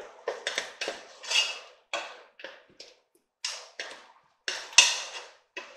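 Wooden spoon stirring diced vegetables and butter in a nonstick pot, scraping and knocking against the pot in a quick, uneven run of strokes.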